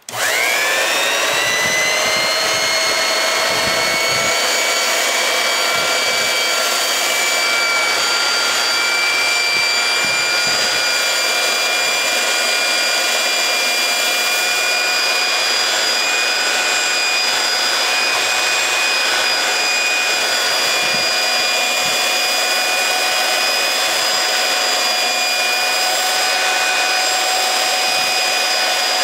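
Vintage Porter-Cable 503 worm-drive belt sander switched on, spinning up with a rising whine in the first second, then running steadily at full speed: a high whine of several tones over a rushing noise as the belt is run along a wooden board.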